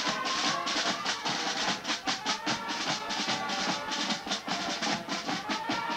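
High school marching band playing on the march: snare and bass drums beat a steady, fast rhythm under sousaphone, flutes and other winds holding a melody.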